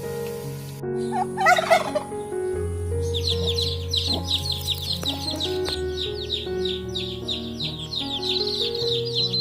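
A domestic fowl gives a short warbling call about a second in. From about three seconds in, a small bird chirps rapidly and steadily, several high chirps a second, over gentle background music.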